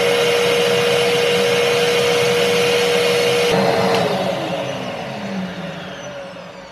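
Kärcher WD2 wet and dry vacuum cleaner's 1000 W motor running steadily with a constant whine, then switched off about four seconds in. It spins down, its pitch sliding lower as it fades.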